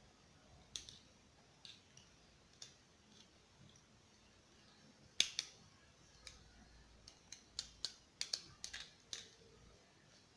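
A spoon clicking and scraping against a strainer while boiled turnip and garlic are pressed to squeeze out their liquid: scattered light clicks, a few at first, then a quicker run in the second half.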